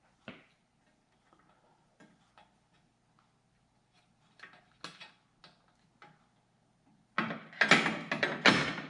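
Light clicks and taps of small metal and plastic headlight parts being handled, with a louder stretch of clattering and rubbing lasting under two seconds near the end, as the sealed-beam headlight is connected and fitted into its bucket.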